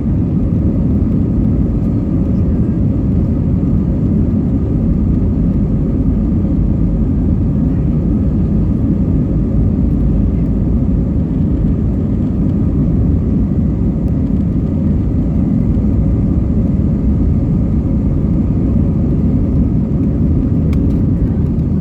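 Airbus A320 jet engines running steadily at takeoff power: a loud, unbroken low rumble with faint steady whining tones above it.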